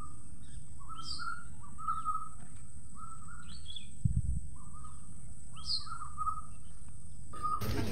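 Bird calling outdoors: a series of short whistled notes with a few higher chirps that slide downward, over a steady faint high whine and low background noise. A brief low bump comes about four seconds in.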